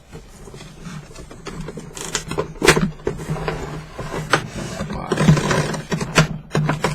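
Cardboard box and plastic packaging of a boxed vinyl figure being handled and pulled at: rustling and crinkling with irregular sharp clicks and crackles, the loudest a little under 3 s in and again near the end, over a steady low hum.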